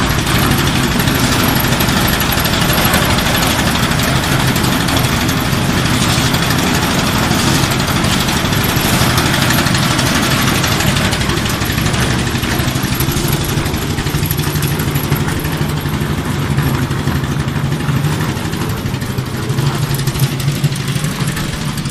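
Concrete mixer's engine running steadily with a low hum while the drum turns.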